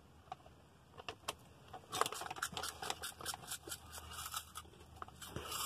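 Snack bag of Wise Cheez Doodles crinkling as it is handled and shaken, a dense run of crackles starting about two seconds in.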